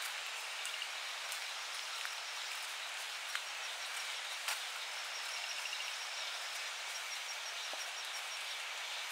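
Early-morning rural ambience: a steady hiss with crickets chirping in quick, even pulses, a couple of short high trills, and a few faint clicks.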